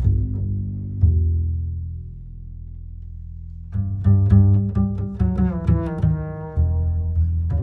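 Background music on low strings, with plucked notes over a deep bass line. It thins to a low held note for a couple of seconds before the plucked notes return.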